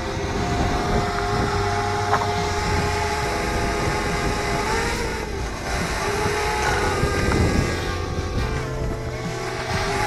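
Parrot Bebop quadcopter's propellers whining overhead as it descends, the pitch shifting a few times as the rotors change speed, over a low wind rumble on the microphone.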